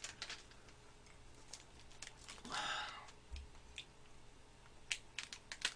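Faint, scattered clicks and rustles of a plastic snack wrapper being handled as a thin sheet snack is taken out. A short breathy noise comes about halfway through.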